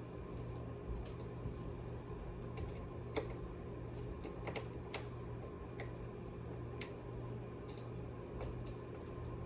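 Small, irregular clicks and taps of a screwdriver and the tiny metal screw and spacer being worked in a PS5's M.2 expansion slot, over a steady low hum.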